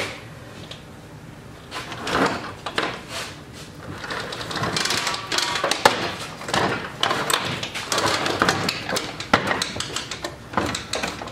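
Clunks, scrapes and rattles of a heavy rubber-tracked drive chassis being tipped over and shifted about on a steel diamond-plate workbench. The handling noise starts about two seconds in.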